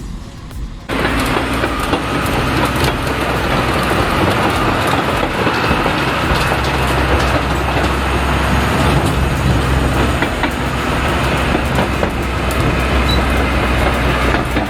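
Heavy earth-moving machine's diesel engine running hard with a steady low drone, with scattered knocks and rattles. It comes in about a second in.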